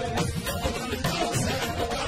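Live qawwali ensemble music: a harmonium holding a steady tone under fast, even percussion strokes.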